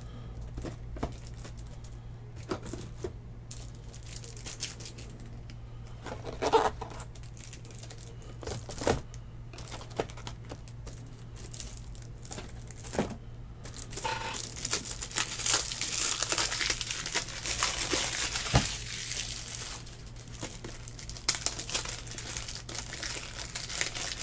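Plastic wrapping crinkling and tearing, with a long stretch of dense rustling about two thirds of the way through, scattered clicks and taps, and a steady low hum underneath.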